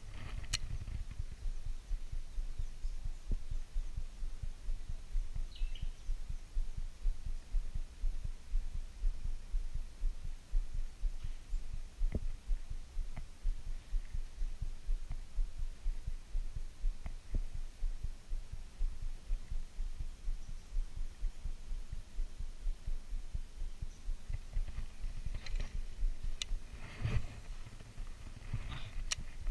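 Low, irregular thumping rumble on a chest-worn action camera's microphone, with a few faint clicks near the start and near the end.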